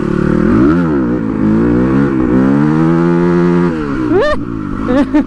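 Crossfire RM250 dirt bike's 250 cc single-cylinder engine revving up under throttle, with a short dip about a second in, climbing and held high for a couple of seconds, then dropping off as the throttle closes just before four seconds in.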